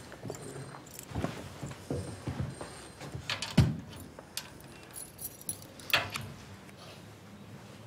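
Handling sounds of a man rising from a desk and working at a wooden cabinet: a run of small knocks and clicks with some metallic rattling. The loudest knocks come about three and a half and six seconds in.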